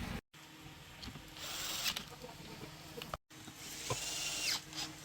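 Workshop handling sounds during power-tool reassembly: scattered clicks and knocks of metal parts and two short hissing bursts. The sound drops out abruptly twice between clips.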